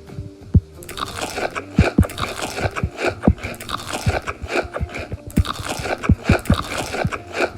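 Close-miked crunchy chewing and biting of food, with crisp crackling crunches that come in bunches, pausing briefly between mouthfuls.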